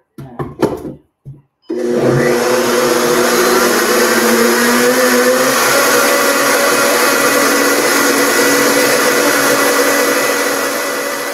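A few knocks as the countertop blender is handled, then its motor starts up about two seconds in, rising in pitch, and runs steadily, grinding oats and buckwheat into flour. It eases slightly near the end.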